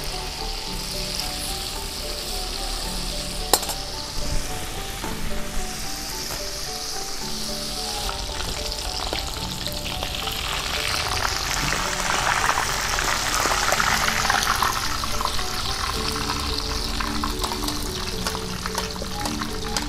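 Chicken pieces frying in hot oil in an aluminium wok: a steady sizzle that gets louder about halfway through, with a metal spatula stirring and clinking against the pan.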